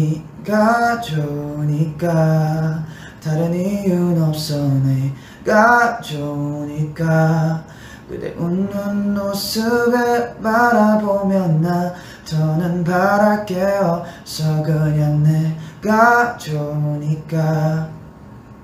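A young man singing softly and unaccompanied, a slow melody in short held phrases with brief pauses between them.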